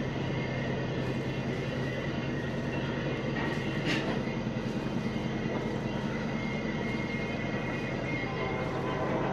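A sailing catamaran's twin engines running steadily at a little above idle, a low even drone, with a short click about four seconds in.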